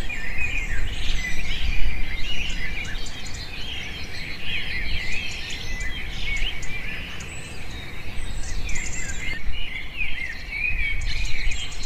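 Many small birds chirping at once in a dense, continuous chorus, over a low steady background noise.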